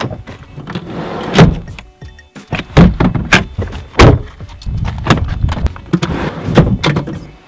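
A 2016 Jeep Patriot's door is opened by its handle, then the seat levers are worked and the seats slid and folded forward: a string of sharp clacks and thunks with sliding scrapes between them. The loudest knocks come about one and a half, three, four and six and a half seconds in.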